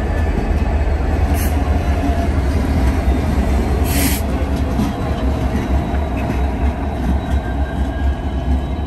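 Several BNSF diesel-electric locomotives running light past at close range: a steady, heavy low engine rumble with the noise of wheels rolling on the rail. A short hiss comes about four seconds in, with a fainter one a little before it.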